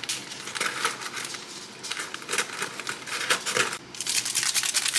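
Printed paper bouquet wrap crinkling and rustling, with scissor snips and irregular crackly clicks as fresh peony stems are unwrapped and trimmed.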